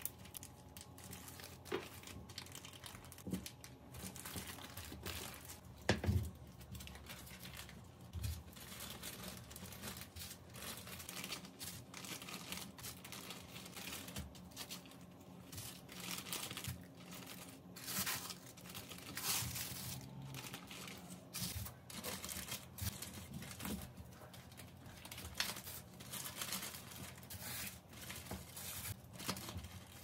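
Plastic freezer bags and plastic film crinkling and rustling in irregular bursts as they are handled. A knock about six seconds in is the loudest sound.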